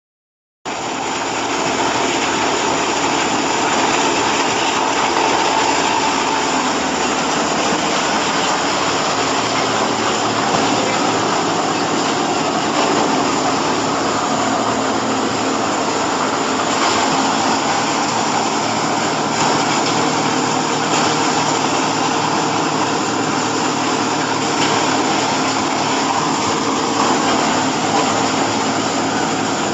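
Chopped-hay bagging baler running: a loud, steady machine din that starts abruptly within the first second and holds without pause.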